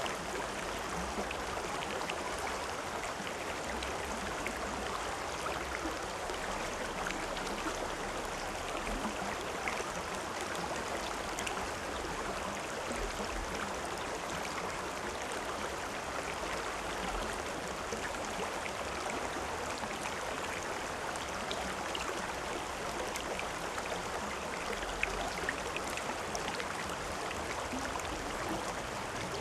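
River or stream water flowing steadily, a constant rushing with small splashes and gurgles scattered through it.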